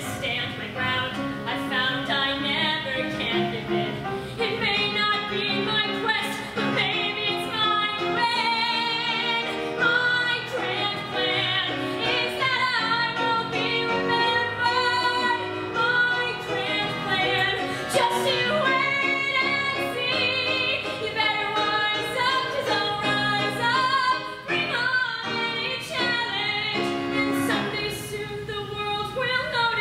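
A girl's solo voice singing a musical-theatre song with keyboard accompaniment.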